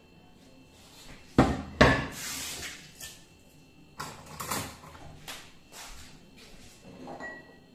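Kitchen cupboard door handled: two sharp knocks close together about a second and a half in, then softer knocks and clicks a few seconds later.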